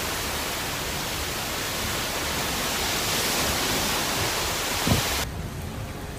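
Heavy rain falling in a thunderstorm: a steady, dense hiss. About five seconds in it drops to a quieter patter, just after a brief low thud.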